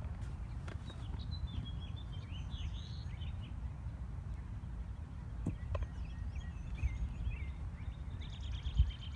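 Open-air ambience: a steady low rumble with birds chirping on and off and a few faint clicks, and a low thump near the end.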